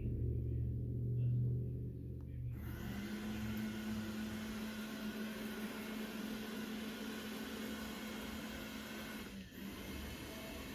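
Robot vacuum running, a low hum at first, then its motor whirring steadily from about two and a half seconds in, with a brief dip near the end.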